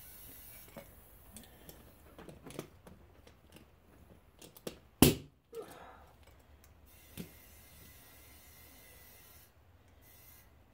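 A single sharp bang about five seconds in, typical of starter fluid igniting inside a lawn tractor tire to blow the bead back onto the rim, amid light clicks and handling noises.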